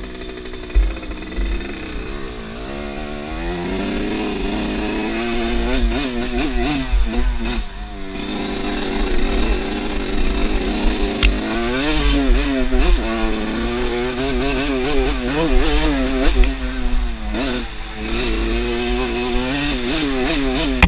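Off-road motorcycle engine running under load while ridden, its revs rising and falling repeatedly with throttle changes, with a low rumble underneath.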